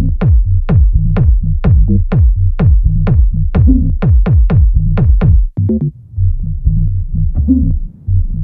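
Electronic dance music: a steady, driving beat of about two and a half hits a second over a pulsing bass line. About five and a half seconds in, the beat drops out, leaving a choppy bass pattern.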